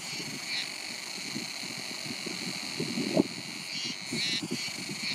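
Wind gusting and buffeting the microphone in irregular low rumbles. Over it run a steady high whine and a few short, high trilled chirps.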